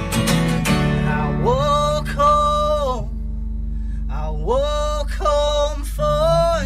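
A man singing to his own acoustic guitar: a few strummed chords, then two long held sung phrases over ringing chords.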